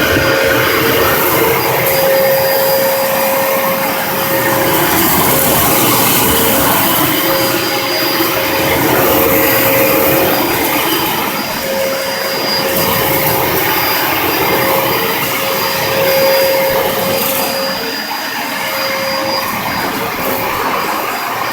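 Dyson DC33 upright vacuum cleaner running: a loud, steady motor noise with a constant whine, swelling and easing a little as it is worked over the floor.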